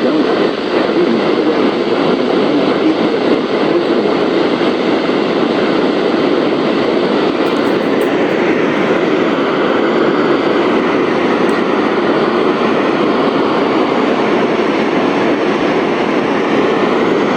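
Steady, loud hiss of FM radio static from a software-defined radio receiver on the VHF weather-radio band, with no programme audio coming through.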